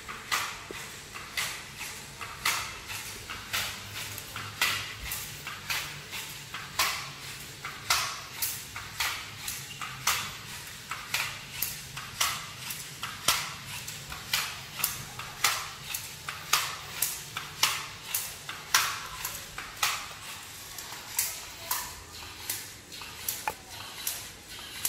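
LEGO Mindstorms EV3 walking robot's plastic feet clicking and tapping on a hard tile floor as it crawls, an uneven run of about two taps a second, over a low steady hum.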